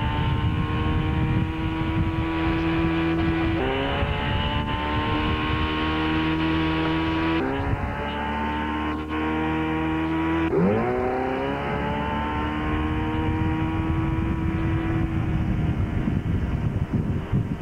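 Motorboat engine towing a water skier. Its pitch climbs and then holds steady several times, at about 4, 7.5 and 11 seconds in, as the throttle opens to pull the skier up out of the water. Rushing water and wind on the microphone run underneath and grow gustier near the end.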